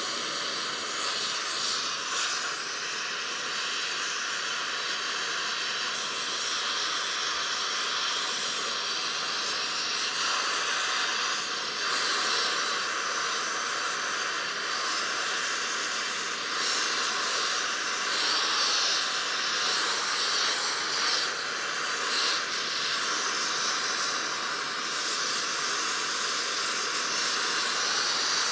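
Steady hiss of a gas welding torch's flame playing on a cast iron casting being heated and brazed, swelling slightly now and then.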